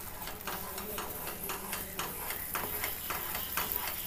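Flat wooden spatula stirring and scraping thick ash gourd halwa around a non-stick pan, in quick strokes about three or four a second. The halwa has cooked down to the stage where it gathers on the spatula and comes away from the pan without sticking.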